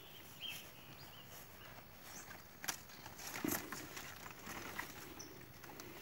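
Quiet outdoor ambience: soft footsteps on grass and light rustling, with a couple of soft knocks about halfway through and a few faint bird chirps.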